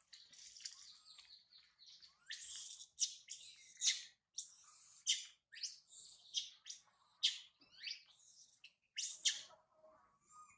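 Young macaque crying: a run of shrill, high-pitched screams that starts about two seconds in and repeats over and over, then gives way to softer, lower calls near the end.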